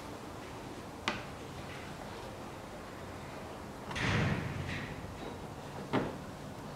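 Hands working rubber coolant hoses and a rag at a plastic coolant expansion tank: a sharp click about a second in, a louder rustling scuffle around four seconds, and another sharp click near six seconds.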